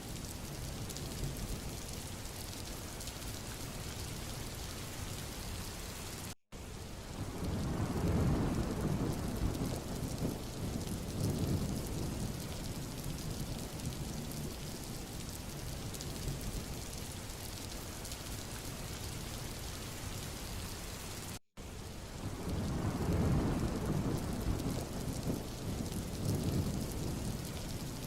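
Steady rain with thunder rumbling twice, each roll swelling and fading over a few seconds. The sound cuts out for an instant twice.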